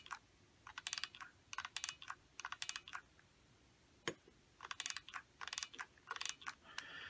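Hot glue gun's trigger and feed mechanism clicking as glue is squeezed out. It comes in short runs of quick clicks about once a second, with one sharper single click about four seconds in.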